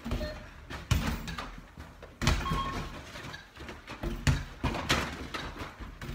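Balls thudding against the backboard, rims and net frame of an indoor double-hoop arcade basketball game, a hit about every second, with a few short beeps.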